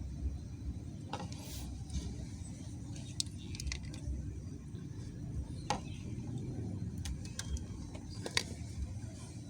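Scattered light metallic clicks and clinks of water pump parts being handled and fitted together by hand, over a steady low background rumble.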